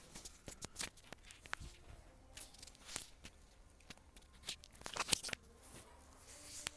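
Rustling and scattered sharp clicks from handling a wired earphone's inline microphone, the cable and fingers rubbing against it at irregular moments.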